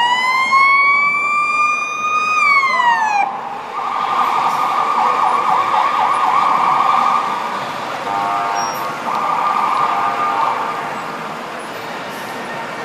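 Electronic siren on a police escort SUV: one long whoop that rises, holds and falls away within the first three seconds, then a fast pulsing yelp for several seconds that fades out near the end.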